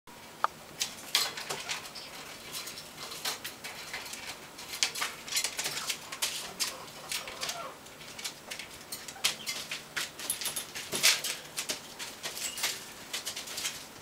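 Eclectus parrot playing with a small ball in its cage: irregular clicks, taps and rustles of beak, ball and feet against the cage floor and bars.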